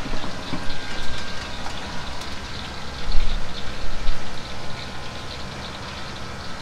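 Steady mechanical hum and hiss of running kitchen equipment, with light handling knocks as rice is scooped into a bowl. A dull low thump comes a little after three seconds in.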